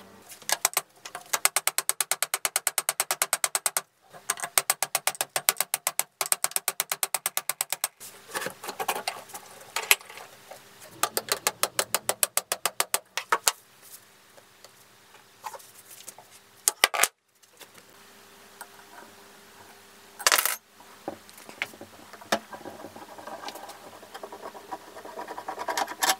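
Hand tools working the grinder's steel extension shaft: fast, even runs of metallic clicks and clinks that stop abruptly, with scattered single clinks and one louder clink about twenty seconds in.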